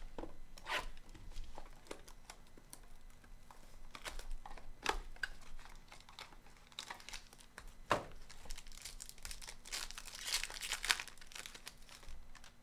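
A Donruss Optic Choice trading-card box and its foil pack being torn open by hand: irregular crinkling, crackling and tearing, thickest about two-thirds of the way through.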